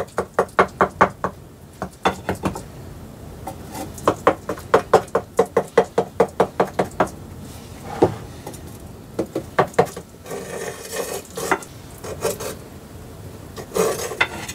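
A kitchen utensil knocking repeatedly against a metal baking tray as minced meat for tepsi kebabı is scored and patterned, in quick runs of about three to four knocks a second with pauses between them. A short stretch of scraping follows a little after the middle.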